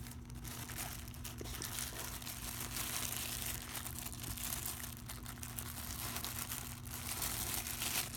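A bag crinkling and rustling continuously as an autographed baseball is handled and slipped back into it, over a steady low hum.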